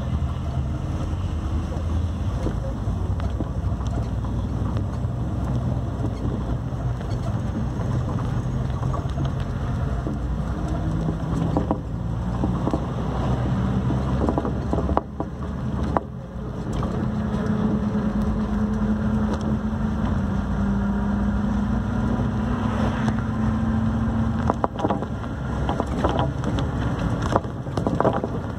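Engine and road noise of a moving vehicle heard from inside, a steady low rumble with wind noise on the microphone. Partway through, a steady engine hum stands out for several seconds.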